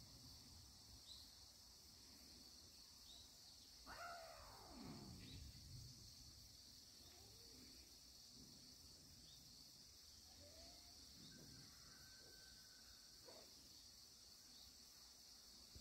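Near silence with a faint, steady high insect chirring. A faint call falls steeply in pitch about four seconds in, with a few soft chirps scattered through.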